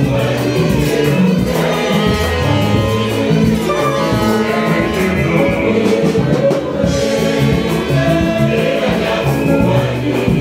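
Church choir singing a hymn with hand-drum accompaniment.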